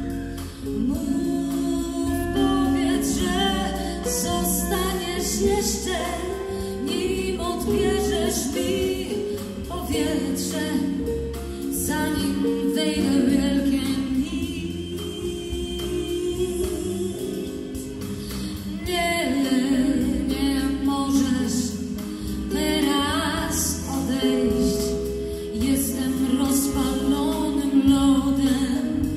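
A woman singing lead with a live band: electric guitar, bass guitar and drums behind her voice.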